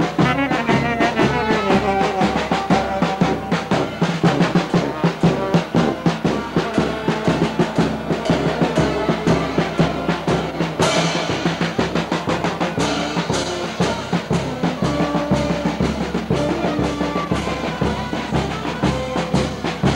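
Procession band playing a march: bass drum and snare beating steadily under a wind and brass melody, with a cymbal crash about eleven seconds in.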